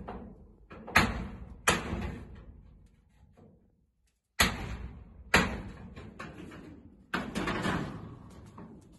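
Corrugated sheet-steel cladding banging and rattling as it is stripped off a steel shed: about five sharp metal bangs, each ringing off for a second or so.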